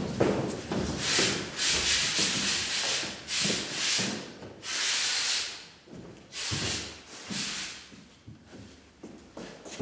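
A large stretched canvas painting scraping and rubbing against a wall as it is slid into position by hand: a series of separate scraping swishes, thinning out near the end.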